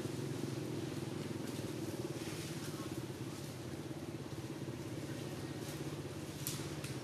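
A motor running steadily in the background, a low even hum that does not change, with a faint brief rustle about six and a half seconds in.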